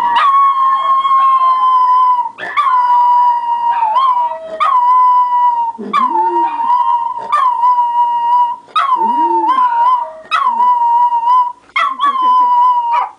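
Dog howling over and over: about a dozen long howls, each a second or so, every one dipping briefly at its start and then holding one steady pitch.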